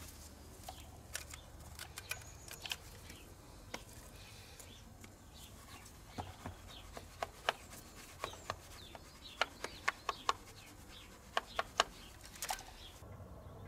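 Faint, scattered light clicks and taps of a cloth and gloved hand wiping around the injector bores and fittings of a diesel engine, more frequent in the second half.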